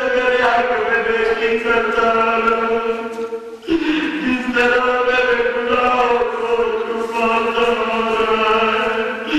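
A man's solo voice chanting a devotional recitation through a microphone, holding long, drawn-out notes. He breaks off briefly for breath about three and a half seconds in, then starts a new phrase.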